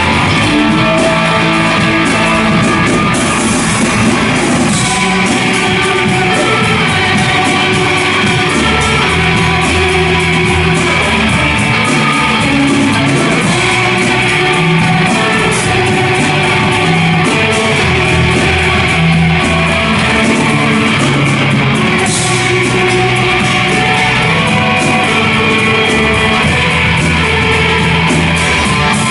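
Rock band playing an instrumental passage of the song without vocals: guitar over a drum kit, at a steady high level.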